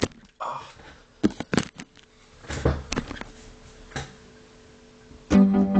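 A few scattered knocks and clicks, then about five seconds in an electronic keyboard starts playing chords.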